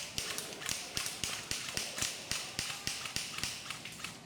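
A steady series of sharp clicks, about four a second.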